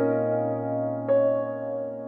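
Background music: soft piano or electric-piano notes. One is struck at the start and another about a second in, each ringing out and fading away.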